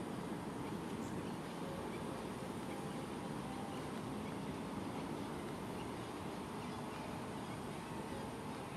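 Steady outdoor background noise with a few faint, short high chirps scattered through it.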